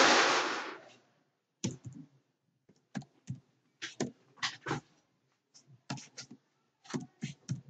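Computer keyboard being typed: separate key clicks in small irregular clusters. A loud hiss fades out about a second in.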